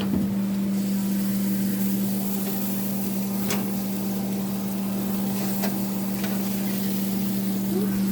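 A kitchen appliance's motor hums steadily on one low pitch, with a few faint clicks, one about three and a half seconds in and another about five and a half seconds in.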